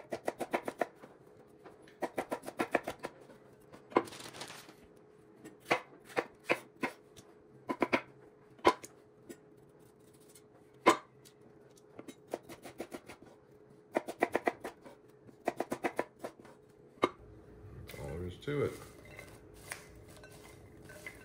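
Chef's knife slicing bell peppers on a wooden cutting board: quick runs of sharp taps as the blade meets the board, in bursts with short pauses between. For the last few seconds there is softer rustling as the sliced peppers and onions are tossed by hand in a ceramic bowl.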